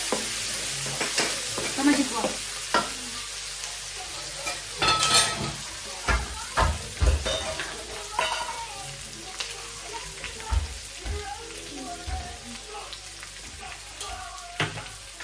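Potatoes, onions and tomatoes sizzling in a metal wok, stirred and scraped with a wooden spatula that knocks against the pan, with the strongest strokes around the middle. The stirring stops and the frying settles into a quieter sizzle toward the end.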